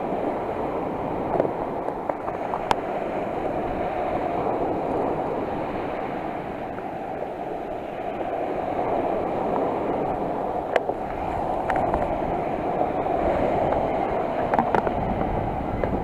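Sea surf washing on the shore: a steady rushing noise that swells and eases slightly, with a few sharp clicks.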